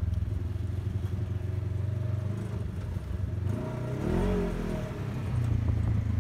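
Off-road buggy engine running with a steady low drone; about halfway through it eases off, with a brief rise and fall in pitch, then settles back to a steady pull.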